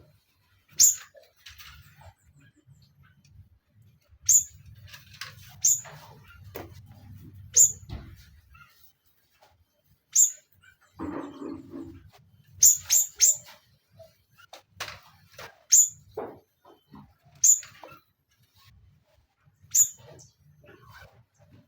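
Caged songbirds giving short, sharp, high-pitched chirps at irregular intervals, sometimes two or three in quick succession.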